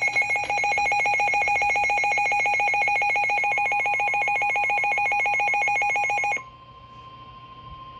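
Emergency Alert System attention signal: a loud, rapidly pulsing electronic alarm tone that cuts off suddenly about six seconds in, leaving a fainter steady tone. It marks the start of a new weather warning.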